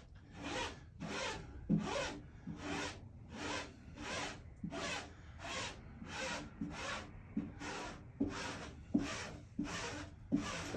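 Squeegee pushed in repeated strokes over a wet vinyl decal, a rhythmic rubbing swish nearly twice a second, with a short squeak at the end of many strokes as it works the water out from under the vinyl.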